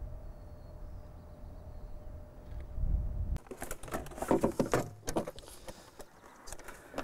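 A low outdoor rumble with a faint steady hum. About three and a half seconds in, a quick run of knocks, scuffs and clatter from a field crew moving about and handling metal sensor stands.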